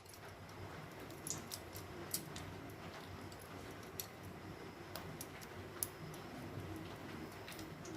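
Faint, scattered small clicks of whole dried cloves being handled, their flower heads pinched off by hand, about six sharp ticks over a faint steady hiss.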